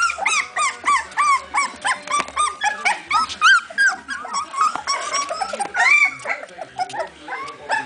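A litter of three-week-old border collie puppies yipping and whining, many short, high, rising-and-falling calls a second from several pups at once, as they tussle with each other.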